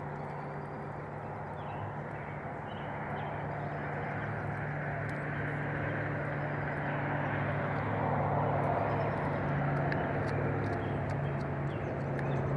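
Cuckoo Marans hens pecking at feed, with many small quick taps and short soft calls, over a steady low hum.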